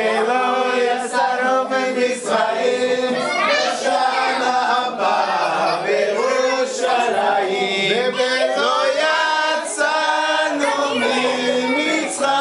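A group of voices singing a Passover seder song together without accompaniment.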